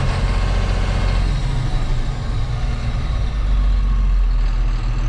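Tata tipper truck's diesel engine running steadily at low revs, heard from inside the cab while the truck reverses slowly.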